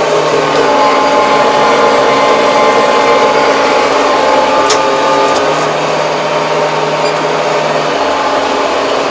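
Tractor engine running steadily, a constant mechanical drone heard from inside the closed cab.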